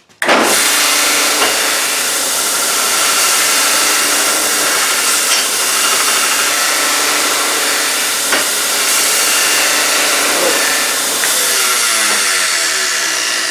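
Homemade belt grinder starting up and grinding a piece of steel, with the steady rasp of the running belt against the metal. Near the end the motor is switched off and coasts down, its pitch falling.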